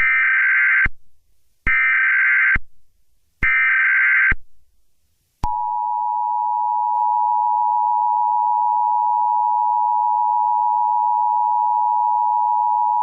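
Emergency Alert System-style broadcast alert: three short bursts of digital data tones, each under a second, then a steady two-tone attention signal starting about five and a half seconds in.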